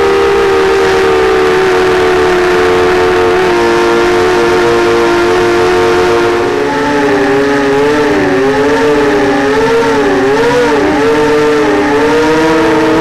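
Diatone 180 racing quadcopter's brushless motors and propellers whining, heard from its onboard camera: several steady tones at once, which begin wavering up and down in pitch about halfway in as the throttle changes.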